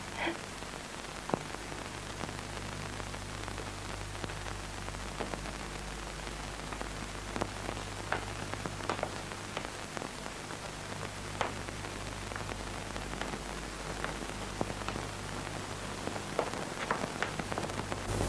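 Steady hiss and low electrical hum with scattered faint clicks: the background noise of an old film soundtrack.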